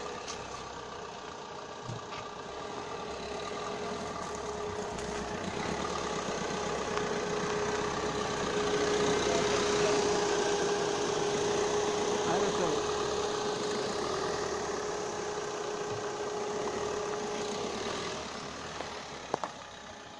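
Maruti Suzuki Ertiga's engine running at low speed as the car crawls over a loose gravel dirt track. It grows louder as the car passes close by about halfway, then eases off, with one sharp click near the end.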